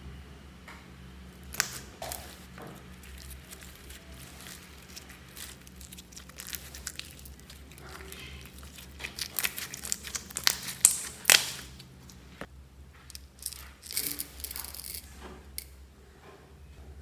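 Hands squeezing and stretching glossy glitter slime, giving a run of sticky clicks, crackles and small pops. The pops come thickest and loudest around ten to eleven seconds in.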